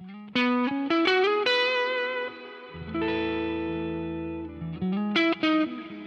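PRS SE Custom 22 Semi-Hollow electric guitar on its coil-split neck pickup with a low-gain overdrive tone, playing a lead phrase. Quick picked notes with bends and vibrato lead into a held note about three seconds in, then another fast run near the end.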